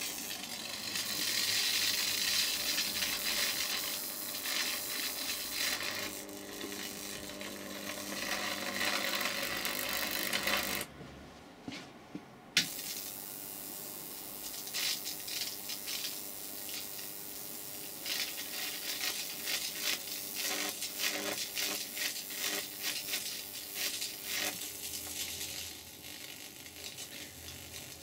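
High-voltage arc crackling and sizzling through a sprig of Leylandii caught in the grid of a bug zapper powered by microwave oven transformers at about 4,000 volts, with a faint buzz under it. It stops briefly about eleven seconds in, then starts crackling again.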